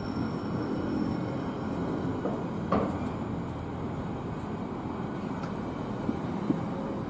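A train running at a railway station: a steady low rumble, with one sharp knock about three seconds in and two lighter ticks near the end.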